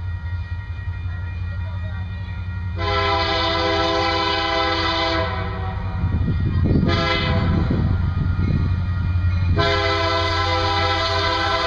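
Air horn of an approaching Union Pacific freight train's lead EMD diesel locomotive, blowing long multi-note blasts: one starting about three seconds in and another from about seven seconds in that lasts to the end. Under the horn, the diesel engines give a steady low rumble.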